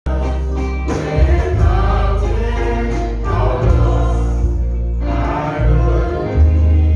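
Gospel music: a group of voices singing over a strong bass line, with a brief break in the singing a little past the middle.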